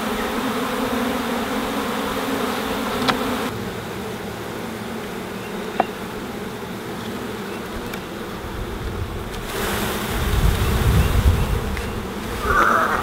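Dense, steady buzzing of a large mass of honey bees from a package being shaken out into a hive. A low rumble swells in the second half.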